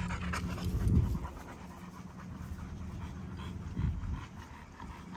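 American bully dogs panting from the heat, with two brief louder low rumbles, one about a second in and one near four seconds.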